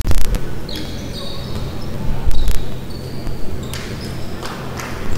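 Short high squeaks of basketball shoes on a hardwood court, several of them, with a few sharp knocks in between over a steady low hum.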